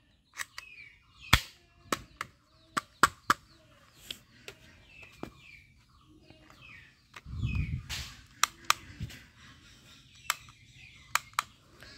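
A toy ball-bullet gun fired and worked by hand: sharp, irregular clicks and snaps, about fifteen of them, with birds chirping faintly in the background and a brief low rumble about seven seconds in.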